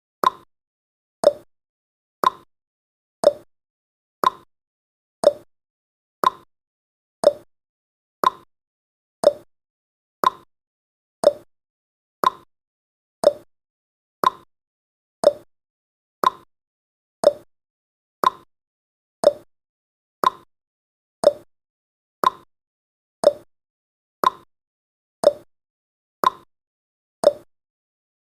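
Countdown timer tick sound effect: one short, sharp tick every second, steady and even.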